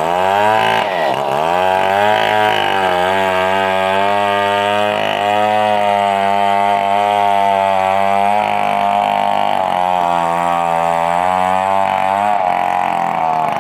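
Engine-driven wood saw running under load while cutting through a log, its engine note dipping and recovering several times in the first few seconds, then holding steady.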